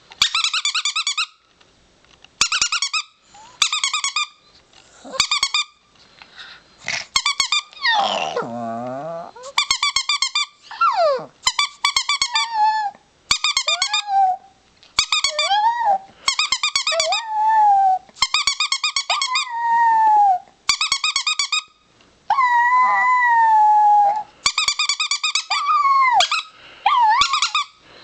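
Chihuahua howling: a long series of high-pitched, quavering howls about a second each with short breaths between them, and now and then a longer note that slides down or is held.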